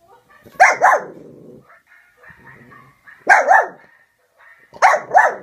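Small dog barking: three pairs of quick, loud barks, about half a second in, past three seconds, and near the end, with fainter sounds between them.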